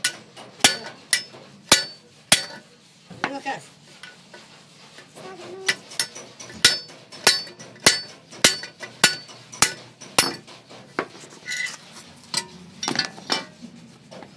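Hammer striking metal: sharp, ringing blows at a steady pace of roughly one every half second. The blows pause for about three seconds a couple of seconds in, then resume.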